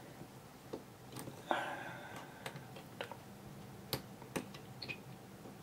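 Scattered light clicks and taps of small metal lockpicking tools being handled and tried in a lock, with a brief metallic scrape about a second and a half in and two sharper clicks around four seconds in.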